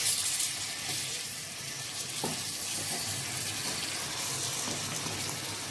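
Dum aloo potatoes sizzling in hot oil-rich gravy in a steel pot: a steady frying hiss, with one faint tap about two seconds in.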